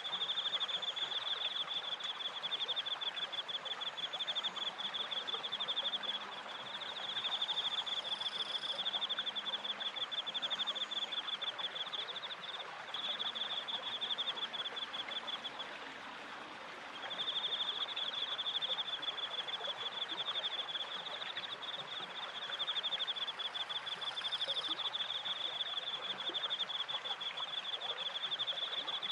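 Crickets trilling in a fast, even pulse that breaks off briefly twice, over the steady rush of water from a stream and a turning wooden waterwheel.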